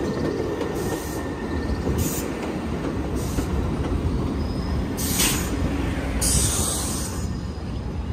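New York City 6 subway train rolling past at close range on an elevated line, its wheels giving a steady rumble. Several short, high hissing bursts come over it about once a second, the longest a little past halfway.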